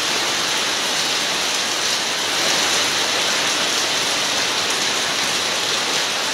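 Heavy rain falling steadily, a dense even hiss of a downpour.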